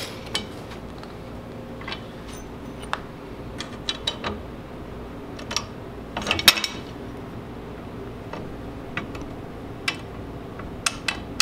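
Scattered metallic clinks and knocks as steel suspension parts and bolts are handled and fitted at a hot rod's front axle, with a louder cluster of clanks about six seconds in, over a steady hum.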